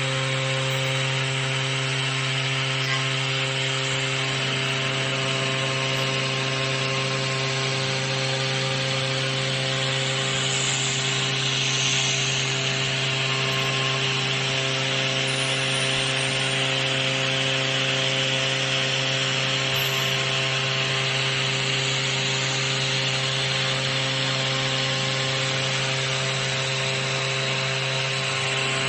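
Tomahawk Pro CNC machine running and cutting a plate: a steady hum with several constant tones over a continuous hiss of cutting noise, without a break.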